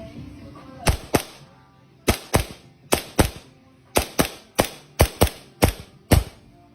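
WE Hi-Capa 5.1 gas blowback airsoft pistol firing about a dozen sharp shots, many of them in quick pairs, each with the snap of the slide cycling.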